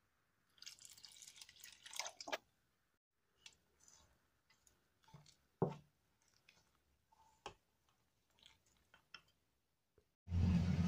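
Water poured from a plastic bottle into a steel bowl of bread batter mix, followed by a silicone spatula squelching through the wet mixture and clicking against the steel bowl in scattered strokes. Near the end a loud, steady hum cuts in suddenly.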